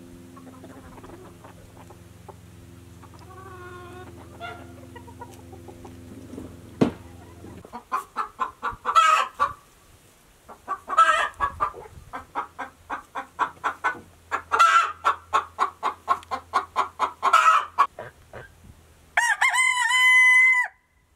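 Icelandic chickens clucking: runs of quick clucks, each ending in a louder squawk, repeated several times, over a steady low hum in the first seven seconds. Near the end a rooster crows once, cut off abruptly.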